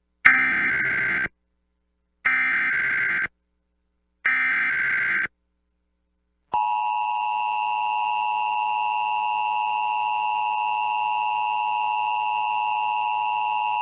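Emergency Alert System alert opening on NOAA Weather Radio: three short bursts of the SAME digital header, about a second each and a second apart, then the long steady attention tone starting about six and a half seconds in.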